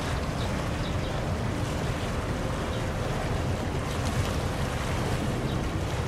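Steady low rumble and rushing water from a large bulk carrier passing close by, its wake washing along the hull, with some wind on the microphone.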